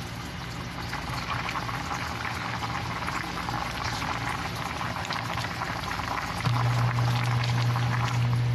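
Fish soup with sweet potato tops boiling hard in a covered pot: a steady crackling, bubbling hiss. A low steady hum becomes loud about six and a half seconds in.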